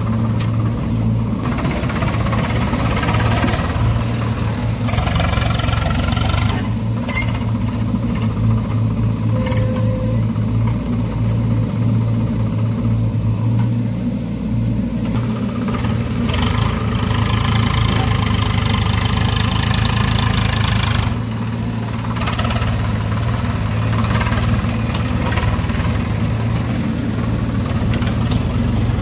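Diesel engines of a farm tractor and a JCB 3DX backhoe loader running as soil is loaded into the tractor's trolley: a steady low engine drone that swells with harder revving in several stretches.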